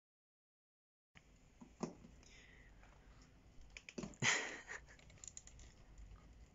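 About a second of silence, then faint small taps, clicks and rustles of a Pomeranian pawing and mouthing a balloon, with a louder scuffing rub about four seconds in.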